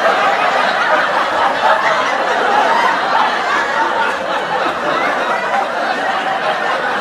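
Sitcom studio audience laughter: many voices laughing and chuckling together, steady and continuous.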